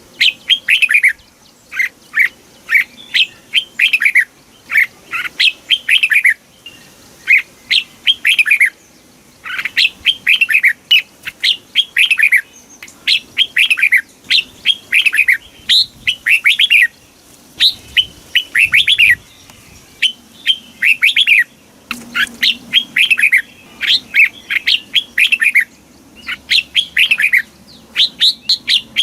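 Red-whiskered bulbul singing: a fast run of short, bright phrases of quickly falling notes, repeated over and over with only brief pauses.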